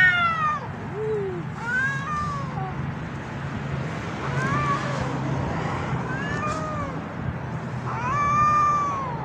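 Cat meowing repeatedly: about six drawn-out calls that rise and fall in pitch, the loudest at the very start and just after eight seconds.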